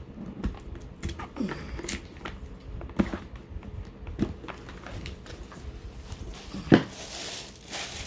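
A cardboard box and its packing being opened and handled: scattered light taps and knocks, one sharp knock, then paper rustling near the end.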